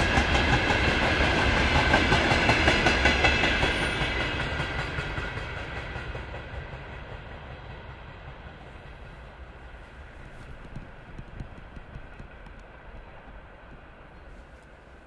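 Wheels of a freight train's open gondola wagons clattering over the rail joints as the tail of the train passes, then the rumble fading steadily as the train draws away.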